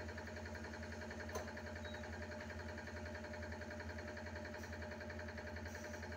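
Electric hydraulic pump of a concrete compression testing machine running with a steady hum, with a single faint click about a second and a half in.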